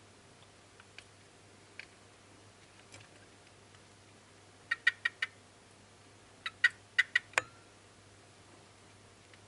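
Brongersma's toads making short, sharp clicks: a few faint ticks, then two quick clusters of four and then five clicks a little under two seconds apart, the last of them a duller knock.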